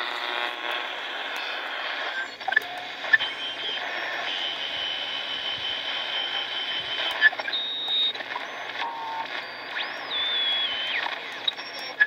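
Hitachi Hi-Phonic portable transistor radio's speaker giving out static hiss, with whistling tones that shift and slide in pitch as the dial is tuned and a few sharp crackles. The owner blames this noise on interference from the power supplies in the shack.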